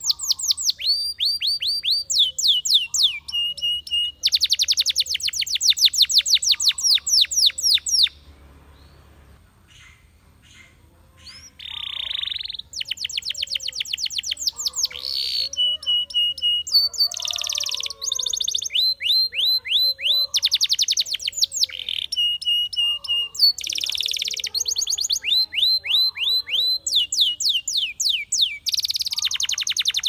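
Spanish Timbrado canary singing: fast trills of rapidly repeated downward-sweeping high notes, broken by short held tones. The song stops for about three seconds a third of the way in, then resumes.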